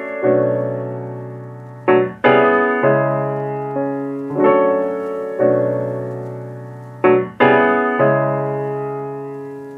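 Background piano music: slow chords, each struck and left to ring and fade, a new chord every second or so, with the last one dying away near the end.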